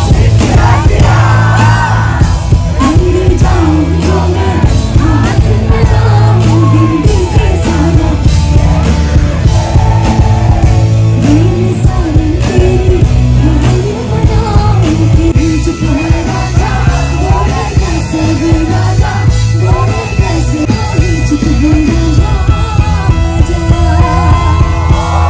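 Live concert sound heard from the crowd: a woman singing into a microphone over an amplified band with heavy bass and drums, loud and steady throughout.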